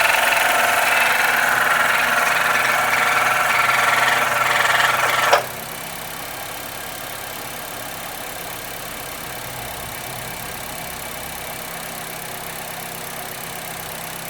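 Honda City engine running after a cold start, with a loud abnormal noise over it that cuts off suddenly, with a brief sharp spike, about five seconds in. A steady, quieter idle remains after that.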